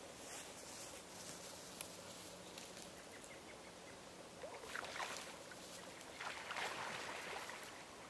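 Canada geese on open water: two bursts of splashing with brief calls, one about halfway through and a longer one near the end, over a faint outdoor background.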